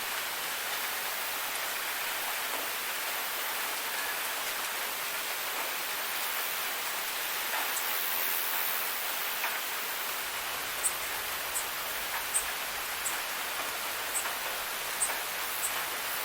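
Waterfall's steady rush of falling water, an even hiss with little low end. From about two-thirds of the way in, short high ticks come in, repeating roughly once or twice a second.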